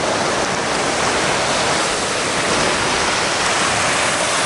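Steady rush of surf breaking on a sandy beach, an even noise with no let-up.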